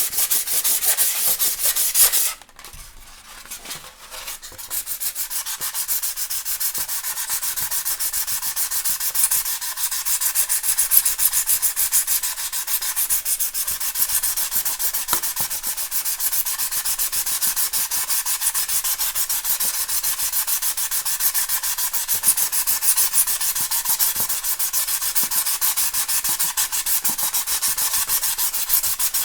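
Styrofoam being rubbed: a continuous, fast scratchy rubbing, with a short pause about two seconds in before it resumes.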